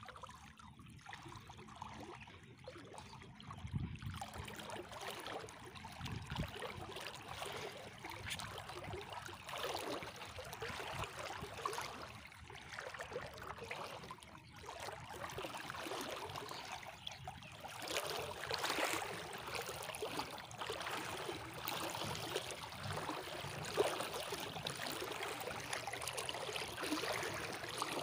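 Shallow river water splashing and dripping as a gill net full of small fish is lifted, dipped and shaken, with wading splashes through the water. The splashing grows busier about two-thirds of the way through.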